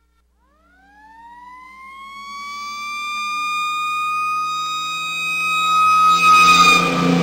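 Fire engine siren winding up from low to a high, steady pitch and holding it, with the truck's engine running underneath. The engine drops in pitch about three seconds in, and the whole sound grows louder near the end as the truck passes close by.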